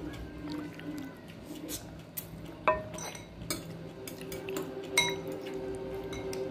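A ladle clinking against a ceramic bowl and the soup pot as broth is ladled over noodles, with two sharp ringing clinks about two and a half and five seconds in.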